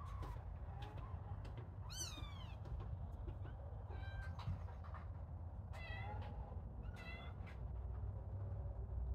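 Young kittens mewing: several short, high-pitched mews, the loudest about two seconds in and others around four, six and seven seconds. Small clicks and a steady low rumble run underneath.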